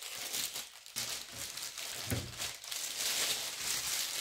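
Thin plastic bag crinkling and rustling as a mini desktop computer is pulled out of it, with a soft bump about two seconds in.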